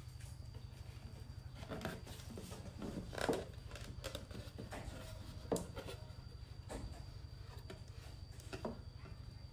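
Tambour (roll-top) door of a wooden bread box slid open and shut in its curved groove: about half a dozen short wooden knocks and a brief scrape of the slats, the loudest a little past three seconds and at five and a half seconds, over a steady low hum.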